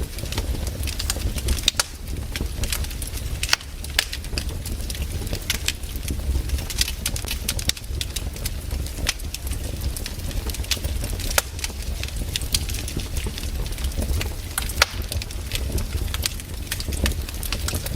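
Wood fire crackling: irregular sharp pops and snaps of burning firewood over a low steady rumble.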